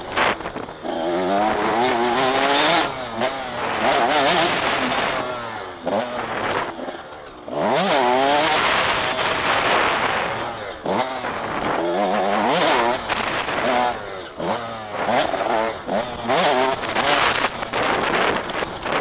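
KTM 85 SX two-stroke motocross engine revving hard and dropping off again and again as the bike is ridden on a dirt track, its pitch climbing and falling every second or two, over a steady rushing noise.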